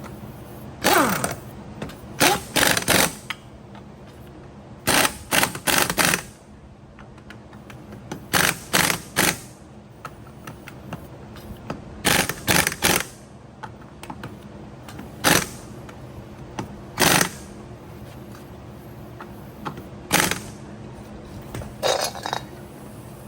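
Metal tire irons clanking and scraping against a small golf-cart wheel rim in short bursts every two or three seconds as the tire bead is levered over the rim.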